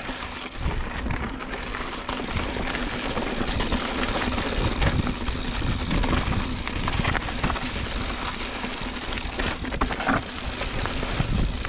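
Motobecane HAL Boost Eagle mountain bike riding over rocky dirt singletrack: tyres crunching over rock and dirt, with frequent short knocks and rattles from the bike and an uneven low rumble.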